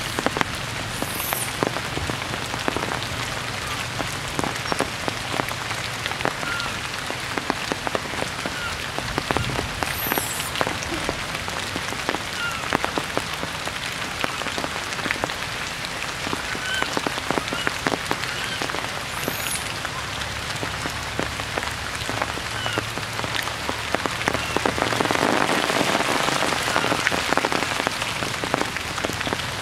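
Heavy rain falling on tree foliage: a steady hiss full of sharp drips and drops, swelling louder near the end, with a few faint brief chirps.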